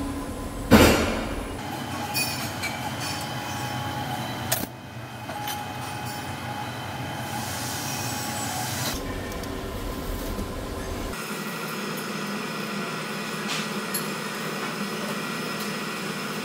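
Steady mechanical hum of workshop background noise, with one sharp metallic clink about a second in and a few lighter taps later, as a steel rule and marker are worked against a steel pipe fitting.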